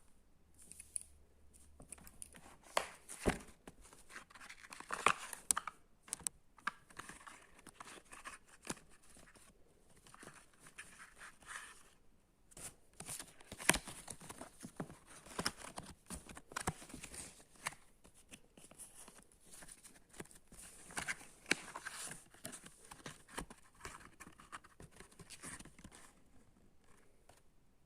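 Packaging being handled and torn open: irregular tearing and crinkling with scattered sharp taps and clicks.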